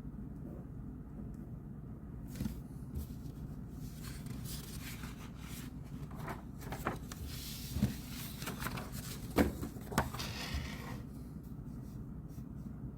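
Desk handling noises: a stretch of rustling and rubbing with a few short light knocks, over a steady low hum.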